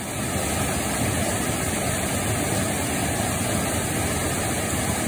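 Water rushing steadily down a small cascade over rocks, a loud, even roar of white water.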